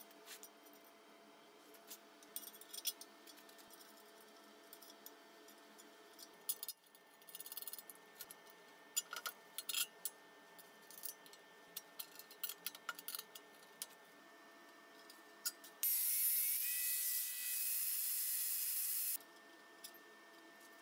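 Scattered metallic clicks, taps and scrapes as a steel rod handle and pin are fitted to a sheet-steel stove body. About sixteen seconds in, a small power tool runs steadily for about three seconds, the loudest sound, then stops.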